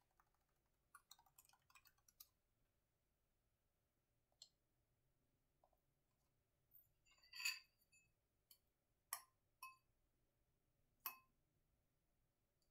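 Laptop keyboard keystrokes, faint and intermittent: a quick run of keys about a second in, then scattered single taps, with the loudest cluster about halfway through.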